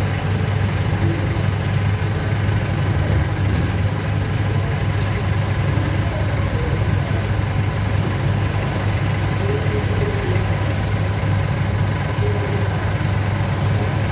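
Diesel engine idling steadily, an even low hum that does not change.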